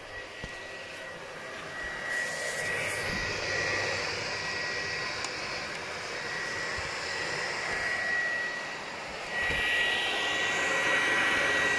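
PlayStation 4 Pro cooling fan running at high speed, a steady rushing whirr like a vacuum cleaner with a thin whine on top, getting louder about two seconds in and again near the end. The fan is racing because the processor is overheating, which the owner puts down to its thermal paste having lost its effect.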